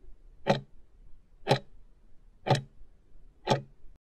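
Ticking-clock sound effect of an answer countdown timer: four sharp ticks, one a second, counting down the seconds left to answer.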